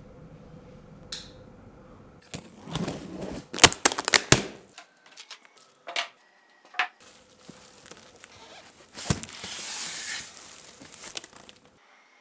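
Plastic wrapping and cardboard packaging being handled: the plastic crinkles and rustles in bursts, the longest about nine seconds in, with a quick run of sharp clicks and knocks a few seconds in.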